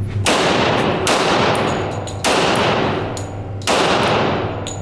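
Four gunshots at irregular intervals of about a second, each followed by a long echoing decay, typical of an indoor shooting range.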